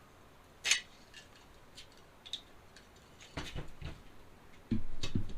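Steel sprockets and bearings of a bicycle-engine shift kit clicking and clattering against each other and the axle as they are slid together on it: one sharp click about a second in, then lighter scattered clicks. A louder low rumble comes in near the end.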